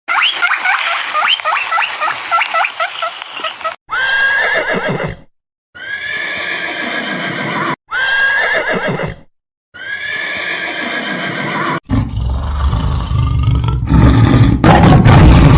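Four whinny-like calls from a horse-like animal, each a second or two long with a held high note, after a run of rapid chirping. A loud low rumbling noise starts about twelve seconds in and grows near the end.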